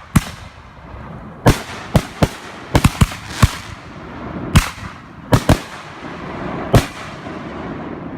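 Consumer fireworks going off: about a dozen sharp, loud bangs at uneven intervals, some in quick pairs, over a steady hissing fizz between them.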